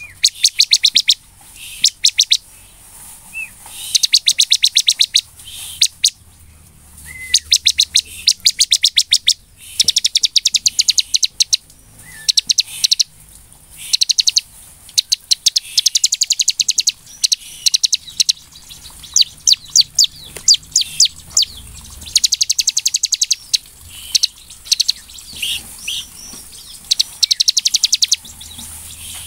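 Bar-winged prinia (ciblek) singing vigorously: repeated bursts of fast, sharp, high-pitched chirps, each burst about a second long, broken by short pauses.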